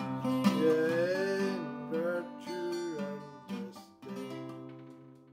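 Acoustic guitar strummed through a song's closing bars. A last chord is struck about four seconds in and rings out, fading away.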